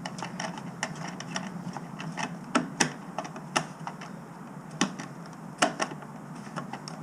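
Irregular small clicks and taps of a jerry can being screwed onto its sissy-bar mount, a few sharper clicks standing out in the middle.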